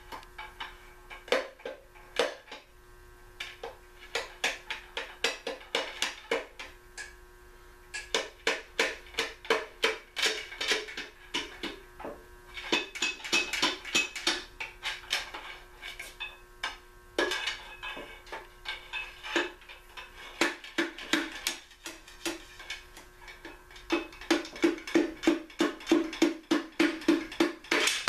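Hammer blows in quick runs of about three or four a second on the bottom end of a 1956 Packard engine. The metal rings after the blows, loudest near the end.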